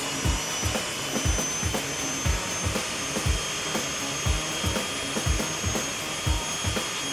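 Gas-turbine air start unit running at a steady high whine, blowing compressed air to spool up the jet's engine, with low thuds about twice a second.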